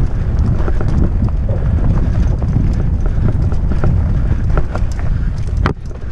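Wind buffeting the microphone of a GoPro riding on a fat bike going fast down a dirt forest trail, with frequent clicks and knocks as the bike rattles over roots and bumps. The noise drops off for a moment near the end, then comes back.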